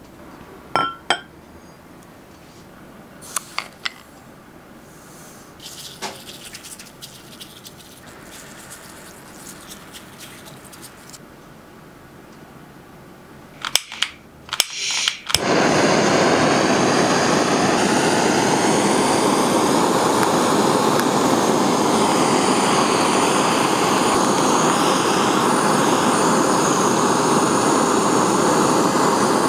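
Granulated sugar sprinkled over the surface of a custard pudding with a soft rustle. About halfway in, after a few clicks, a kitchen blowtorch lights and runs with a loud, steady rushing hiss as it caramelises the sugar.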